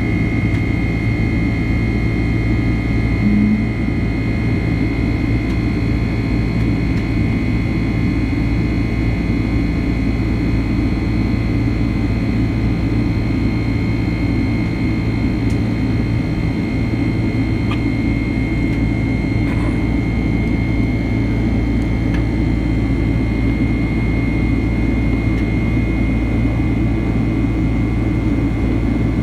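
Boeing 767-300ER cabin noise during the climb after takeoff. The turbofan engines and airflow make a steady low rumble, with a steady high whine on top.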